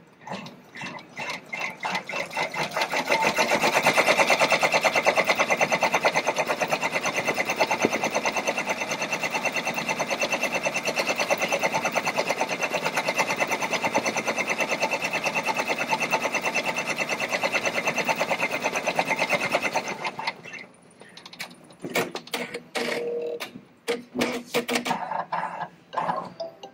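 Baby Lock multi-needle embroidery machine stitching an outline onto a cap in its cap frame: the needle strokes quicken over the first few seconds into a fast, even rhythm that stops suddenly about twenty seconds in. Scattered clicks and knocks follow.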